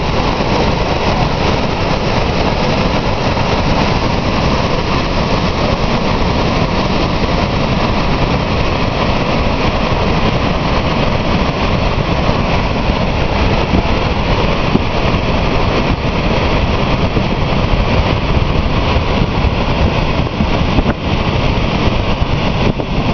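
The Lower Falls of the Yellowstone River, a large waterfall heard from close above its brink: a loud, steady, unbroken rush of plunging water.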